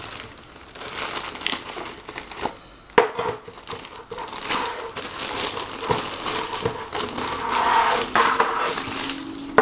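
Plastic packaging crinkling and rustling as it is pulled off and out from under a keyboard, with scattered clicks and one sharper knock about three seconds in.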